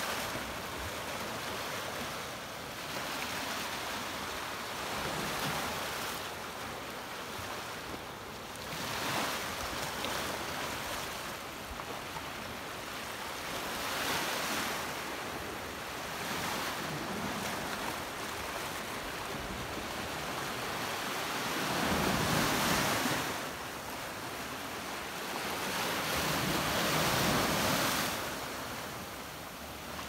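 Small Black Sea waves washing onto a sandy beach and around rocks, each one surging and falling back every few seconds, with two larger surges in the last third.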